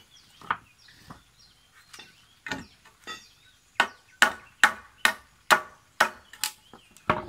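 Hammer striking a nail in a scrap-wood board: a few scattered knocks, then a quick run of about eight hard blows, roughly three a second, and one last knock near the end. The blows knock the nail back out through the board so it can be pulled and the wood reused.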